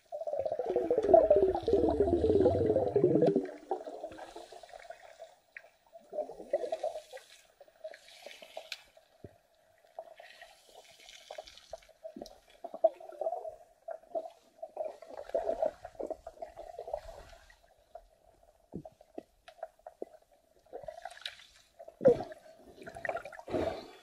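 Water gurgling and bubbling over an underwater camera: loud churning for the first three seconds or so, then quieter intermittent gurgles and splashes, with a few sharper bursts near the end.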